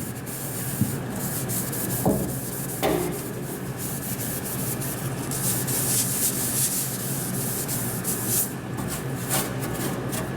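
Green 3M scouring pad scrubbing the inside walls of a TurboChef Tornado oven: continuous irregular back-and-forth rubbing and scratching. A couple of light knocks come around two to three seconds in.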